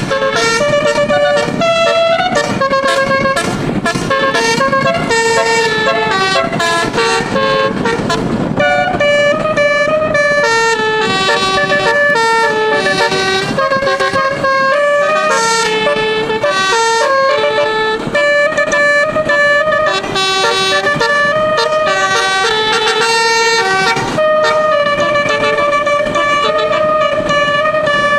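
A bus's 12-note telolet musical air horn playing a tune: a run of held notes stepping up and down, often several sounding together, with a short break about eight seconds in.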